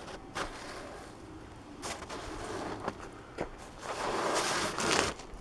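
Snow being scraped and pushed across a tabletop, with a few light knocks. A longer scrape near the end is the loudest part.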